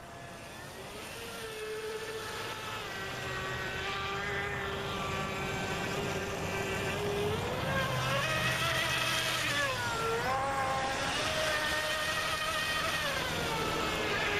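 Radio-controlled boat's brushless outrunner motor driving a Kyosho Dolphin outboard, whining under power over a hiss of water. It grows louder over the first several seconds, rises in pitch about halfway through, then dips sharply and recovers twice as the throttle is eased and reapplied.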